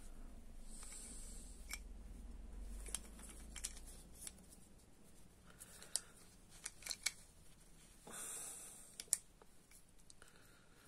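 Faint handling noises of a diesel connecting rod and its loose small-end bushing being turned in the hand: scattered light metallic clicks, with a short rustle about eight seconds in.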